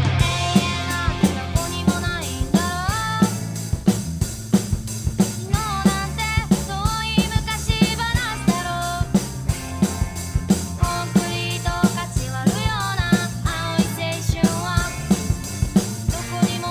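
Rock drum kit played along to a band track with a female lead singer: a steady beat of bass drum, snare and open hi-hat under the guitars and vocals.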